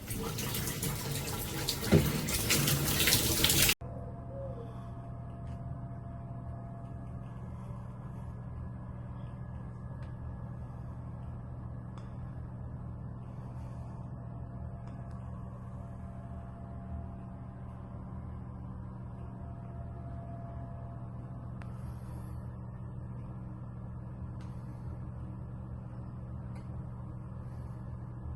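Water spraying from a shower head with a loud steady hiss for about four seconds, then cutting off suddenly. After that there is only a steady low hum with a few faint ticks.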